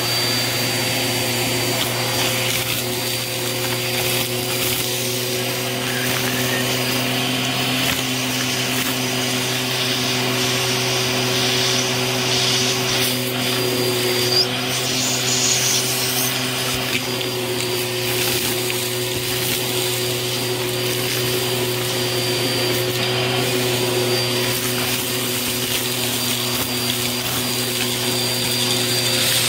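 Bissell vacuum running steadily with its crevice tool, a steady motor hum under a high whine, sucking up gritty dirt, fluff and confetti off carpet with debris crackling through the nozzle. One louder click about halfway through.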